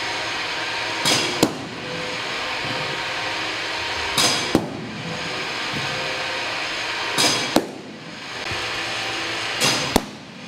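Baseballs popping sharply into a catcher's mitt, four catches about three seconds apart, each just after a short rushing sound of the incoming pitch, over a steady hum.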